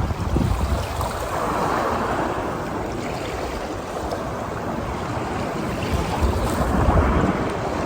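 Strong wind gusting on the microphone with a low rumble, over ocean surf washing onto the beach in slow swells. The gusts are strongest just after the start and again about seven seconds in.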